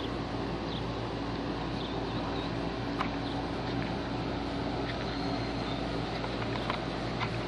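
Steady low mechanical hum, with faint short high chirps and a couple of small clicks.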